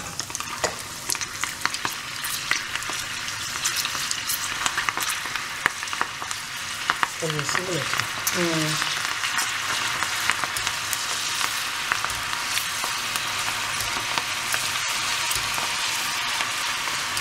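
Chana dal deep-frying in a kadai of hot oil: a dense, steady sizzle thick with sharp crackling pops. A wire spider skimmer is stirred through the bubbling oil.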